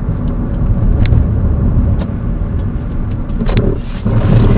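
Road and engine noise of a car driving, heard from inside the cabin through a dashcam's microphone: a steady low rumble with a few faint clicks.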